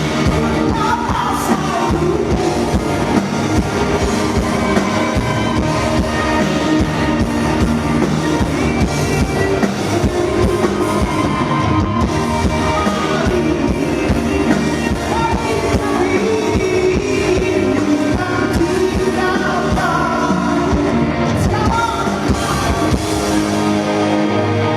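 A rock band plays a song live at a sound check, with a singer over drums and electric guitar.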